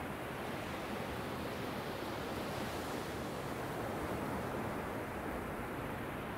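Small ocean surf breaking and washing up a sandy beach: a steady rushing hiss of water that grows brighter a couple of seconds in as a wave runs up the sand, then eases near the end.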